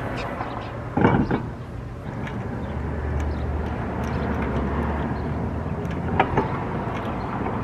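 An alloy wheel knocks onto the car's rear hub about a second in, then lug nuts click as they are threaded on by hand. Under it runs a steady low vehicle rumble from about three seconds in.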